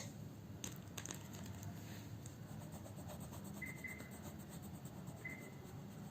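Faint scratching and rubbing of a crayon colouring in a picture on paper, with a couple of small taps about a second in and a few brief, faint high squeaks in the middle.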